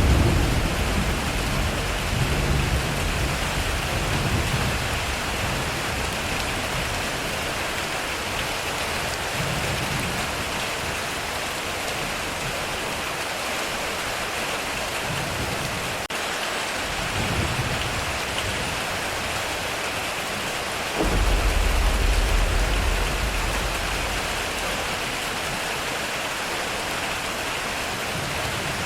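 Heavy rain hissing steadily on a metal roof, with thunder. A low rumble fades over the first few seconds, then a sudden clap about three quarters of the way through rumbles on for a few seconds.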